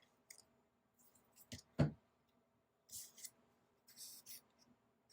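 A glued paper title piece being handled and pressed onto a planner page: a few light taps and a low knock about two seconds in, then two short rustles of paper being rubbed down.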